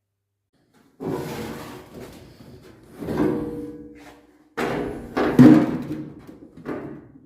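A series of about five bangs and clanks, the loudest a little over five seconds in, some leaving a short ringing tone, typical of workshop fabrication work.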